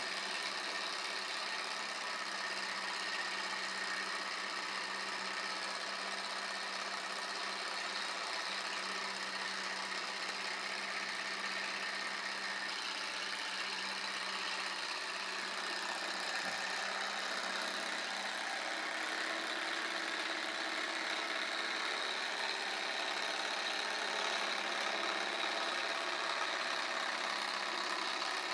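Small model hot-air Stirling engine, heated by a tealight candle under its cylinder, running steadily at speed, its piston and flywheel turning and driving a small belt-linked LED generator.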